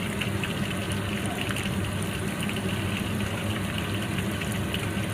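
Chicken pieces frying in oil in a wok, a steady dense sizzle with fine crackles, over a constant low hum.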